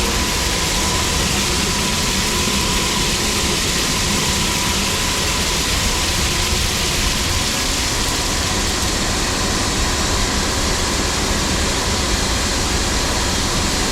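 Tractor engine running under load as it drives a grain cart's auger, with corn rushing steadily out into a semi truck trailer.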